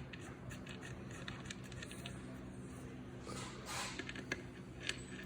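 Faint handling sounds of parts being worked by hand on a bench: light scrapes and small clicks, with a couple of short rustles a little past the middle, over a steady low hum.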